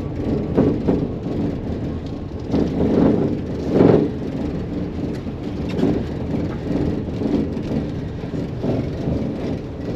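Tyre rumble over cobblestones heard inside the cabin of a Maxus e-Deliver 7 electric van at about 35 km/h, with louder knocks and rattles on bigger bumps about a second in, around three seconds in and near four seconds. The rattling comes from the rear cargo body, whose poorly fitted panels clatter over rough cobbles.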